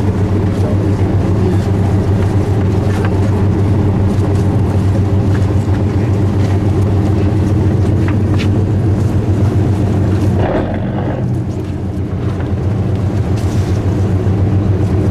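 Fishing boat's engine running steadily, a loud low drone heard from the open deck, with scattered small knocks and clicks. About ten and a half seconds in, a brief rush of noise rises over it.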